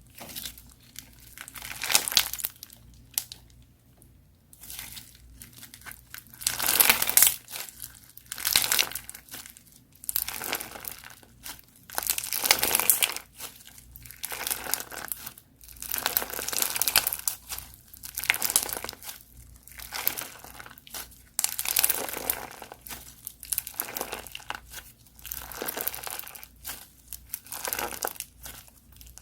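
Crunchy slime being squeezed and worked by hand, giving repeated bursts of crackling every one to two seconds.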